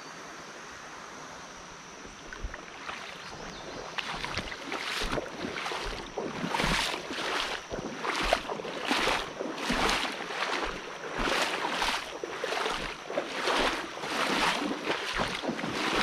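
Someone wading through a muddy creek ford, each stride a swish and splash of water, about one every three-quarters of a second, starting a couple of seconds in.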